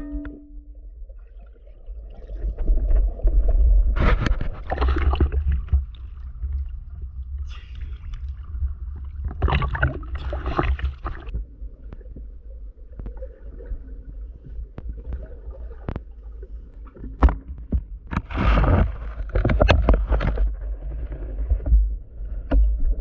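Underwater sound picked up by a diver's camera: a steady low rumble of water with three longer rushing, gurgling surges as the diver moves, and a few sharp clicks.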